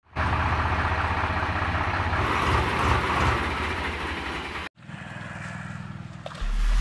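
Swaraj 735 FE tractor's three-cylinder diesel engine running with a fast, even low pulse. It cuts off suddenly about four and a half seconds in and is followed by a quieter, steady engine sound. Electronic music with a beat starts near the end.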